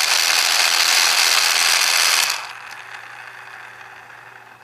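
Battery-powered Trackmaster Hugo toy engine's motor and plastic gears whirring steadily. About two seconds in the motor is switched off and the sound drops sharply, leaving a faint hum that fades as the propeller winds down.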